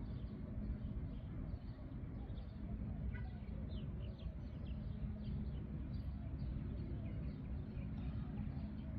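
Birds chirping in short falling chirps, thickest about three to five seconds in, over a steady low rumble of outdoor background noise.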